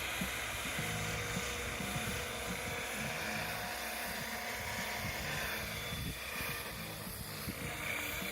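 Align T-Rex 550X electric RC helicopter in flight: a steady whine from the motor and gears over the pulsing hum of the spinning rotors.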